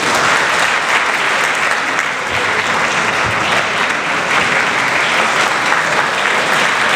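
Audience applauding: many hands clapping in a dense, steady ovation for an award being presented in the ring.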